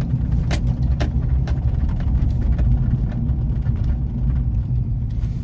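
Steady low rumble of a moving car heard from inside the cabin, with a few sharp clicks in the first couple of seconds.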